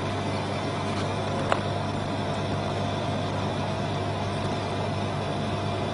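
Steady machine hum, low and unchanging, with one sharp click about one and a half seconds in.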